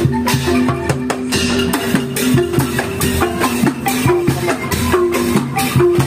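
Procession percussion music: a marching band of large homemade tube and barrel drums beaten with mallets in a fast, busy rhythm, with short pitched low drum notes alternating between a few pitches.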